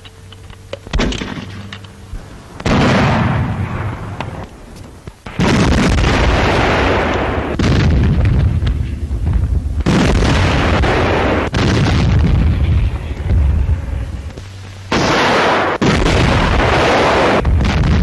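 Battle sound of artillery fire and shell explosions: a run of heavy blasts a couple of seconds apart, about seven in all, each trailing off in a long rumble, with lighter cracks in the first couple of seconds.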